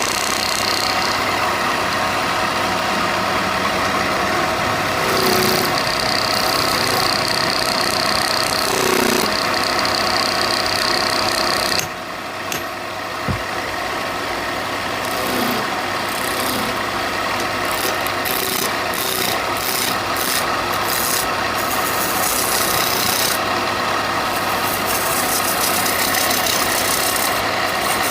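A woodworking power tool running steadily and abrading wood, a continuous rough grinding rasp. The sound drops and changes abruptly about twelve seconds in, then carries on.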